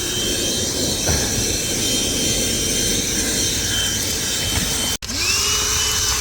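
Einhell cordless handheld vacuum running with a steady motor whine and the rush of air through the nozzle. About five seconds in it cuts out for a moment, then spins back up with a rising whine.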